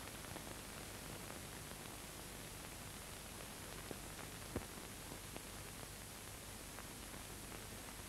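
Steady hiss of an old film soundtrack, with a few faint clicks around the middle.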